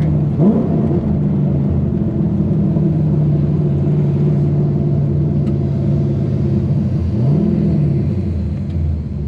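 LS3 V8 in a Nissan 350Z running under way at a steady note, with a quick rev just after the start and a brief rise and fall in revs about seven seconds in.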